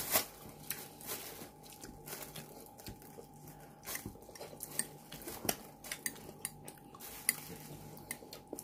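Metal spoon clinking and scraping against a glass jar as it scoops out a thick spread, in irregular short clicks, over a faint steady hum.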